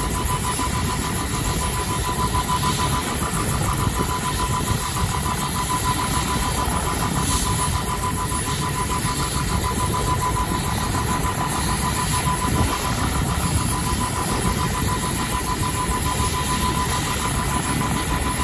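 Helicopter turbine engine running during start-up: a steady high whine over a low rumble, with the rotor turning.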